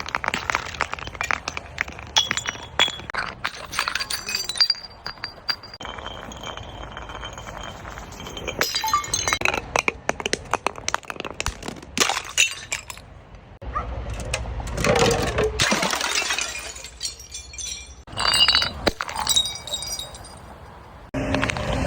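Glass being crushed and broken: dense crunching and cracking with shards clinking and brief high ringing tones. The sound changes abruptly several times, as between separate short segments.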